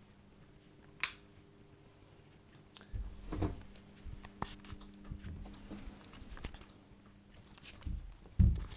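Handling noise from a handheld camera: scattered light clicks and scuffs with low thumps starting about three seconds in, the loudest thump near the end, over a faint steady hum.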